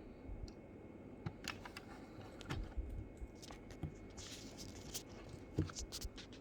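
Handling of a boxed diecast model car: a scatter of light clicks and taps, with a brief rustle about four seconds in.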